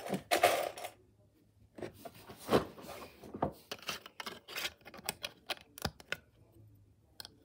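Plastic Lego plates clicking and knocking as they are handled and pressed onto a Lego build: an irregular string of small clicks.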